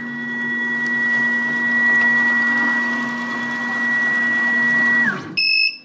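Carvera Air desktop CNC mill's spindle motor spinning up, running steadily with a high whine for about five seconds, then quickly spinning down. Right after, the machine beeps: its alert that it is asking for a tool change.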